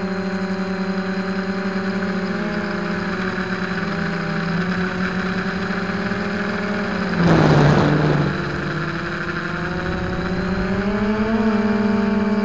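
Hoverthings Flip Sport FPV quadcopter's brushless motors and propellers whirring steadily, heard from the onboard camera. About seven seconds in the pitch drops under a brief, loud rush of air, then climbs back toward the end as the throttle comes up.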